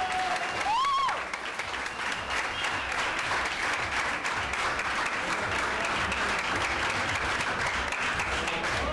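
Crowd applauding, with a single shout about a second in.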